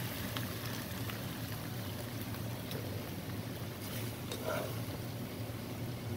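Pasta sizzling in a nonstick frying pan over a steady low hum, with a few light clicks and scrapes as a utensil stirs it.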